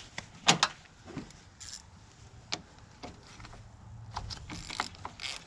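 Scattered sharp metallic clicks and clinks of hand tools being handled at a car battery, coming thicker near the end.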